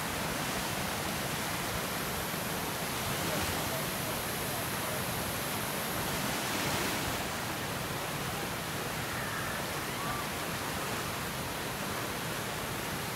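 Rushing water of a fast, swollen whitewater river running over rapids, a steady unbroken rush.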